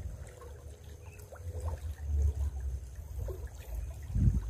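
Water running and trickling along a narrow concrete irrigation ditch, under an uneven low rumble.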